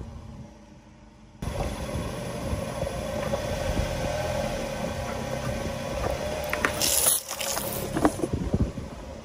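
A car with its engine running rolls slowly onto two plastic dish-soap bottles, with a steady low rumble and wind on the microphone. It starts after a quieter first second or so. About seven seconds in, a short burst of hiss comes as the bottles split and the liquid sprays out.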